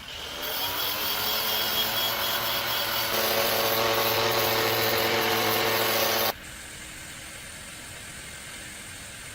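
Power tool running at a steady pitch; its sound changes about three seconds in, then cuts off abruptly a little after six seconds, leaving a quieter steady hum.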